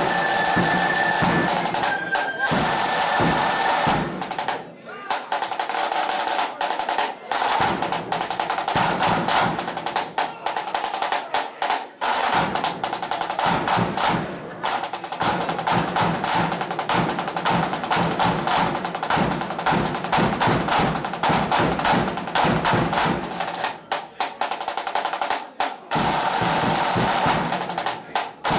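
Blood and thunder flute band playing, its snare drums beating fast rolls and rhythms.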